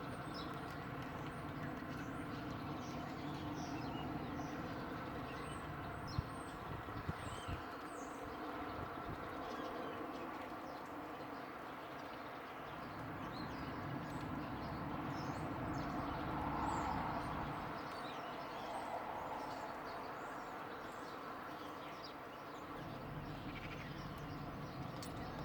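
Small birds chirping in short high calls scattered throughout, over a steady background hum, with a few sharp clicks about six to eight seconds in.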